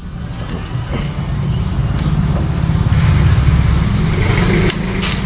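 Isuzu C190 indirect-injection diesel engine running in an owner-type jeep, a steady low rumble that grows louder about a second in and holds.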